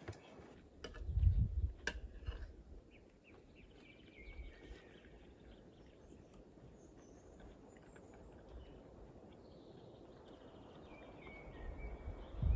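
Small birds chirping faintly in the forest in short scattered calls. A low rumbling bump about a second in is the loudest sound.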